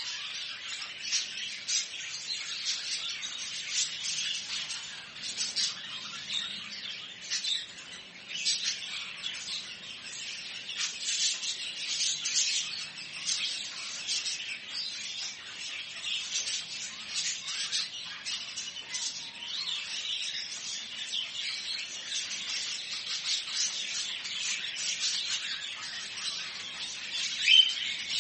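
Many small cage birds in a bird shop chirping at once, a dense, continuous chatter of overlapping high chirps, with one louder sharp chirp near the end.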